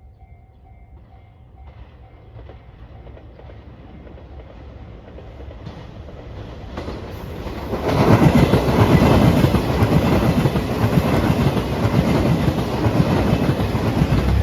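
A level-crossing alarm chimes in a fast even beat at the start. Then a JR Shikoku 2700 series diesel limited express train approaches, growing louder, and passes loudly from about eight seconds in, its wheels clattering over the rails.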